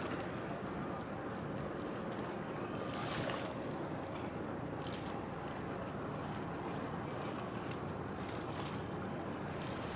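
Steady running of a boat's engine with water washing and wind on the microphone, and brief hissy swells of splash or gust about three and five seconds in.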